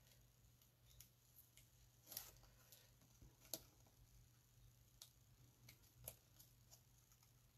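Paper card and tape being handled: faint rustles and small crackles, with a few sharper snaps about two, three and a half, and six seconds in.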